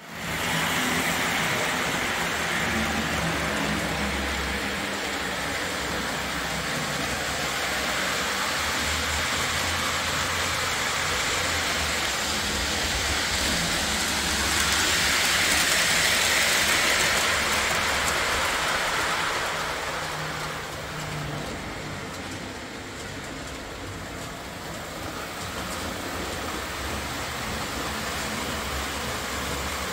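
Model train running on a three-rail 027 layout: a steady rumble and clatter of wheels on track with a low motor hum. It swells about halfway through, as if passing closest, then eases off.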